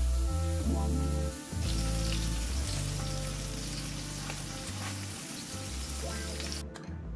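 Beef burger patties sizzling in a frying pan, the sizzle cutting off abruptly near the end, over background music.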